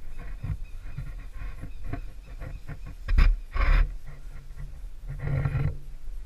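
A tree climber breathing hard while hanging on a rope, in irregular short puffs over a steady low rumble on the microphone; two loud breaths come about three seconds in and another near the end.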